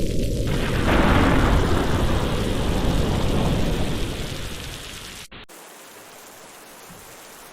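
Thunder rumbling over heavy rain, swelling about half a second in and dying away around four to five seconds in. After a brief dropout, steady rainfall continues at a lower level.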